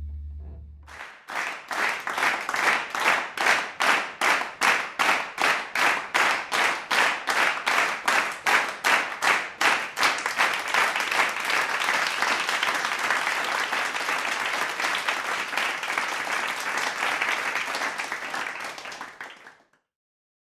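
A group of children clapping together in a steady rhythm, about three claps a second, then breaking into loose, continuous applause that cuts off suddenly near the end.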